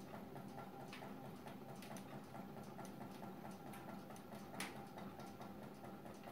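Homemade stovetop Stirling engine turning a 12-inch five-blade fan: a faint, fast, even mechanical ticking as it runs, with an occasional sharper click.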